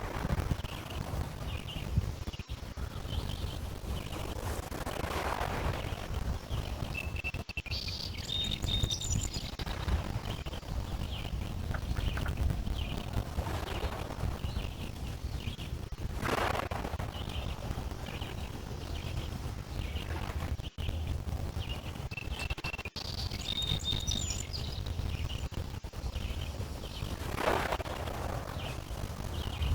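Small lake waves washing at the shore in a few slow swells over a steady low rumble, with birds chirping throughout and a short bird song twice.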